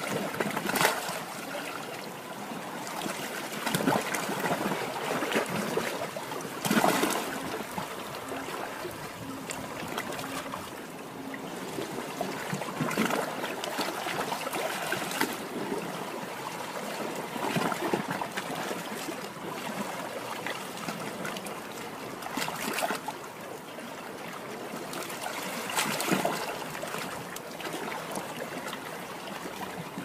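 Small sea waves lapping and washing on the shore: a steady wash of water that swells every few seconds as each wave breaks and runs back.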